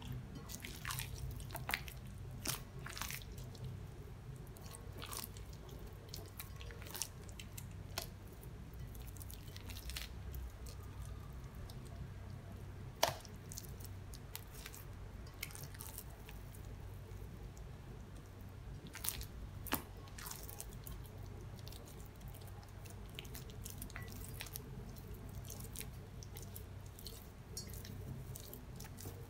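Wet hands folding and pressing soft, sticky bread dough in a bowl: faint squelches and irregular sharp clicks as the dough pulls off the fingers, the sharpest about thirteen seconds in.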